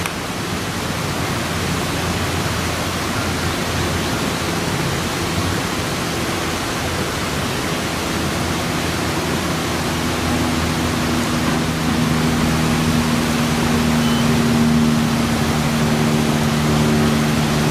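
Steady, even rushing noise, like wind or running water, with a motor's low, steady hum coming in about halfway and growing louder toward the end.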